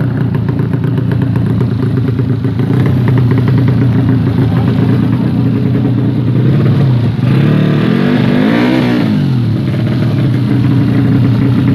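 Motorcycle engine running steadily at a fast idle, then revved up and back down once about eight seconds in.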